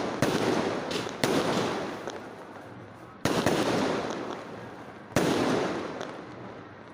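Firecrackers going off: four sudden bursts, each trailing into crackling that fades away over a second or two.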